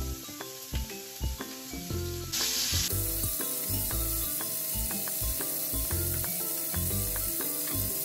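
Pot of pork pieces boiling hard, a steady bubbling hiss that gets louder about three seconds in, while the scum is skimmed off the surface. Background music plays throughout.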